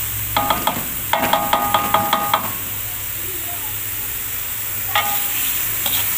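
Metal spatula knocking and scraping against a metal wok while stirring chili spice paste frying in oil, over a steady sizzle. A quick run of ringing taps comes in the first couple of seconds, then a couple of single taps near the end.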